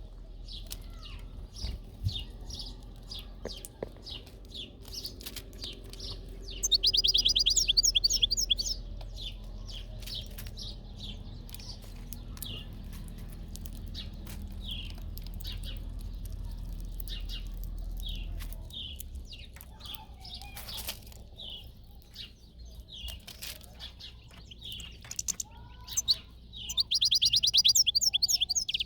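European goldfinch calling with short, repeated chirps, breaking twice into a loud burst of rapid twittering: once about seven seconds in and again near the end.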